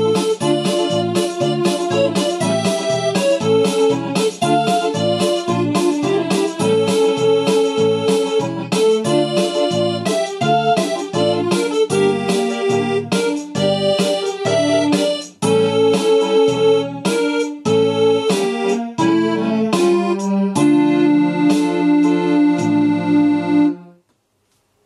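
Casio CTK-541 electronic keyboard playing a tune through its built-in speakers, a melody over chord accompaniment. The music cuts off suddenly near the end.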